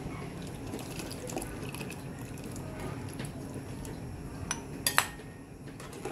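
Liquid being stirred or poured in a cooking pot, with a few sharp clinks of a metal utensil against the pot near the end.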